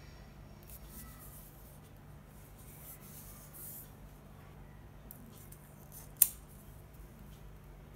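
Hands handling a smartphone still wrapped in its protective plastic film: faint rustling of fingers on the phone, then one sharp click about six seconds in, over a low steady hum.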